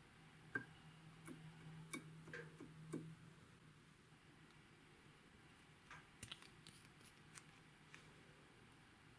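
Slime being worked by hand, giving faint scattered sticky clicks and pops. A faint low hum runs under the first three seconds.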